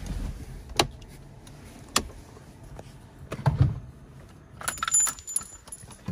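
Two sharp clicks about a second apart, then a dull thump, then a short metallic jangle of keys near the end, inside a car's cabin.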